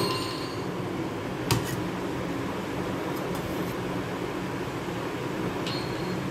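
Steady low hum of a fan, with two light clinks, one about one and a half seconds in and one near the end.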